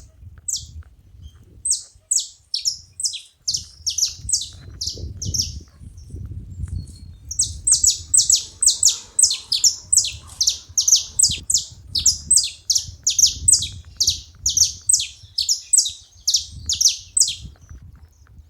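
Saffron finches calling: rapid runs of short, sharp, high chip notes, each dropping quickly in pitch, about three or four a second. A first bout for the first few seconds, then a denser, louder run from about seven seconds in that stops shortly before the end.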